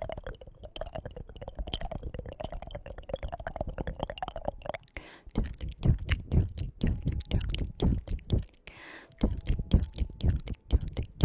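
Close-miked ASMR trigger sounds: rapid, irregular crackling clicks, turning into clusters of clicks and soft thumps about halfway through.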